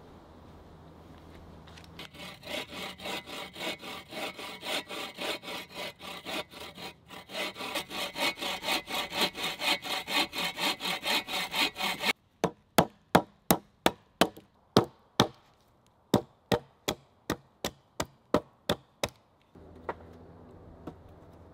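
Folding bow saw cutting through a log in steady back-and-forth strokes, about two to three a second. The sawing stops and is followed by a quick run of about twenty sharp knocks of tools on wood.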